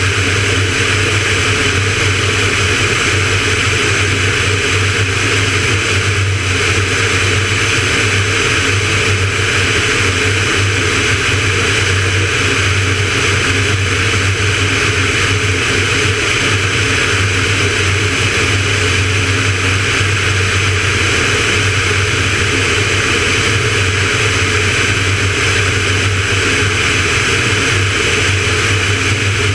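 Van's RV-9A light aircraft in cruise: a steady engine and propeller drone mixed with airflow rushing past a camera mounted on the outside of the plane. It is unchanging throughout.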